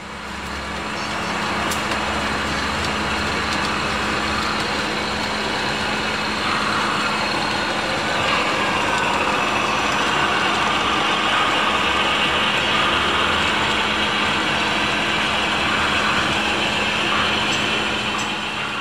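Steady diesel engine drone from model diesel trains running on a model railroad layout, with a constant low hum under it. It fades in at the start and fades out near the end.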